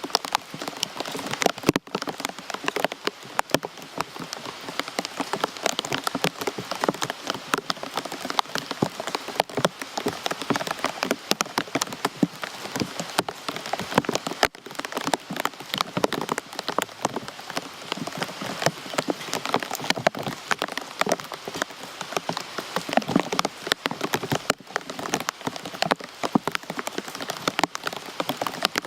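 Rain falling steadily, a dense patter of many individual drops striking a surface.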